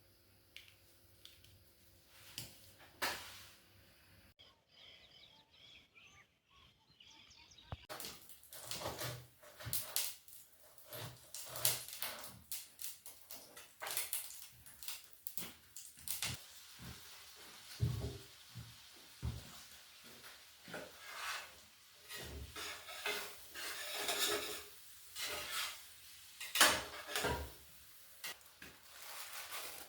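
Clatter of dishes, pots and cutlery being handled, a run of irregular knocks and clinks. It starts sparse and becomes busy about a quarter of the way in.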